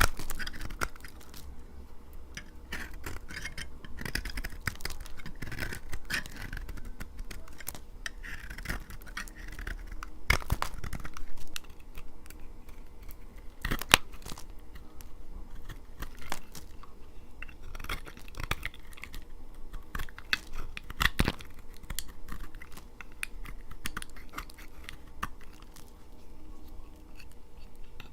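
Dry laundry soap being cut with a knife: a continuous run of crunching, crackling and scraping strokes, with a few sharper snaps among them.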